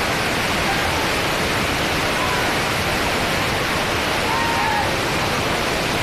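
River in flood: a loud, steady rush of fast-flowing water. A few faint, short pitched sounds rise above it about two seconds in and again past the middle.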